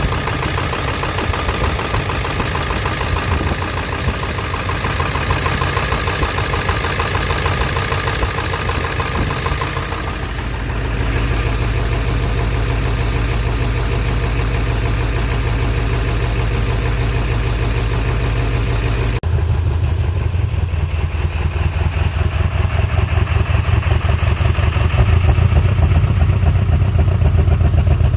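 Ford 7.3-litre V8 diesel engine running at idle, a steady rhythmic diesel clatter that changes pitch and character about ten seconds in and again about nineteen seconds in; the engine is one that is hard to start.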